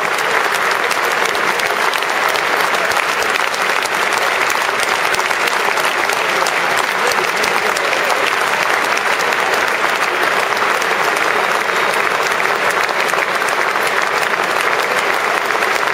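A packed football stadium crowd applauding steadily: a dense, even wash of thousands of hands clapping, with individual claps crackling through, and the players on the pitch clapping along.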